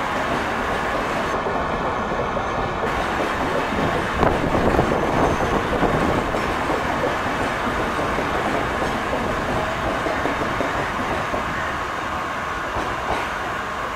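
Humsafar Express passenger coaches rolling past on the track, a steady rumble of wheels on rails. It is loudest about four to six seconds in and eases off slightly near the end.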